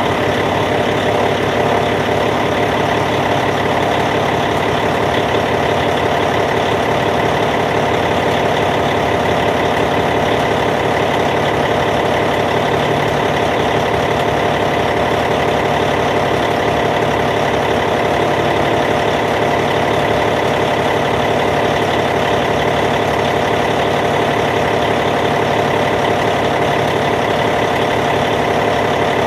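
Caterpillar C15 diesel engine of a D8T bulldozer idling steadily.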